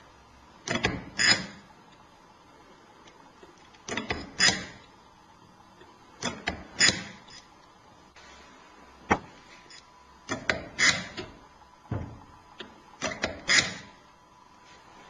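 Sliding microtome's knife carriage pushed back and forth along its metal slide: about six bursts of metal sliding and clanking knocks, a few seconds apart.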